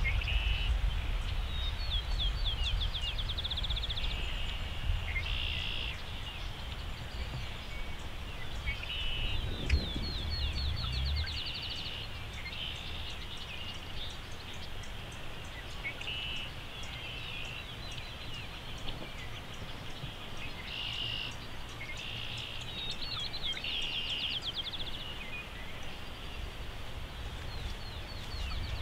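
Several songbirds singing short, repeated trills and phrases over a steady low rumble. About ten seconds in, a brief low thump and hum stands out.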